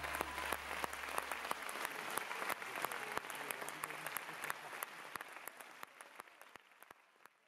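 Audience applauding, the clapping gradually thinning and fading out. A low tone left over from the tango music's final chord dies away in the first two seconds.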